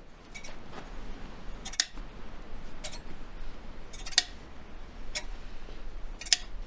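A series of sharp clicks, most about a second apart, over a faint steady low hum.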